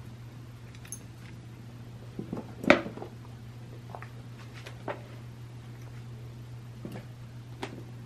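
A cat pouncing on and batting a toy mouse on a fishing line across carpet: scattered soft knocks and scuffs, the loudest a sharp knock a little under three seconds in, over a steady low hum.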